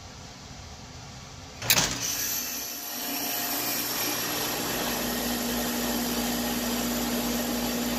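An air-conditioner condensing unit starting up: a sharp clunk a little under two seconds in, then the compressor and condenser fan running with a steady hum that builds over a second or so and settles into a low drone.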